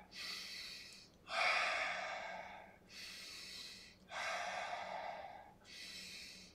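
A man breathing hard in time with a seated Pilates trunk-rotation exercise: three long, forceful exhales, each a second or more, alternating with quieter inhales.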